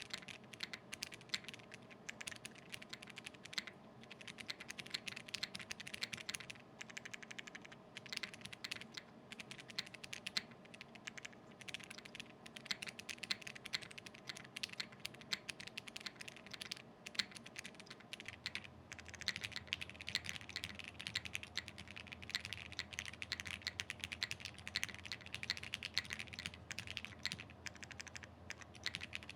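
Continuous typing on an acrylic-cased 60% custom mechanical keyboard with 67-gram Tangerine linear switches and GMK Carbon keycaps: a fast, uneven run of keystroke clacks, with the case foam installed. About 18 seconds in, a new take starts with both case and plate foam fitted, carrying a faint steady low hum beneath the keystrokes.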